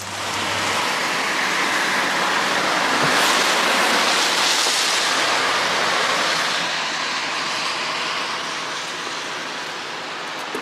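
A rushing hiss of tyres on a wet road, swelling over the first few seconds and then slowly fading, like a vehicle going by on wet asphalt.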